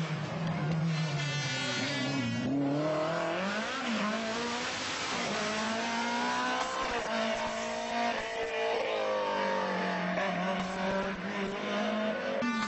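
Rally car engines revving hard, their pitch climbing and dropping again and again through gear changes as the cars drive past, over a steady hiss.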